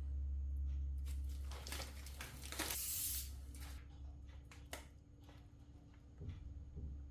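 Soft rustling and scraping sounds, most of them between about one and a half and three and a half seconds in, with a few light clicks, over a steady low hum.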